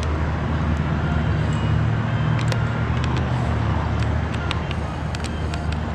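A steady low engine hum, like a motor idling, over a wash of outdoor noise, with a few light clicks.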